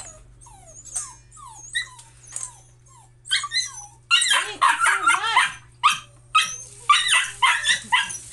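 Dogs whining in high, falling cries, then breaking about three seconds in into a rapid, excited run of yips and barks: impatient begging while their food is being dished out.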